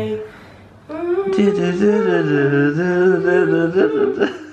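Unaccompanied singing: a voice holds one long note for about three seconds, starting about a second in, its pitch dipping and then rising again.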